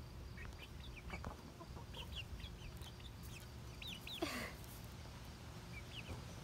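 A small flock of chickens close to the microphone, making many short high chirps and clucks, with one louder, harsh call just after four seconds in.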